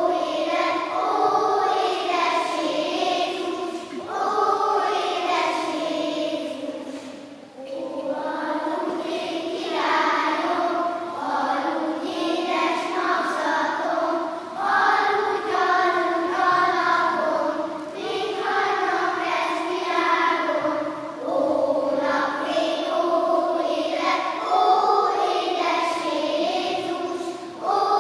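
Children's choir of first- and second-graders singing in a large church, in phrases with short breaks between them.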